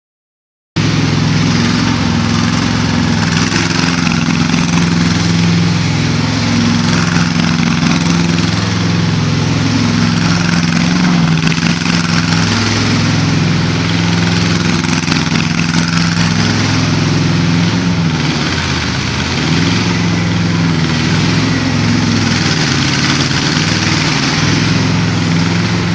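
Small engine of an 800 kg mini excavator running steadily, with a brief dip in level about two-thirds of the way through.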